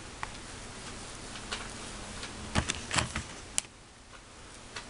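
Scattered light clicks and taps, bunched about two and a half to three and a half seconds in, from fingers handling candy dough on the plastic packets of a DIY candy kit, over a steady low hiss.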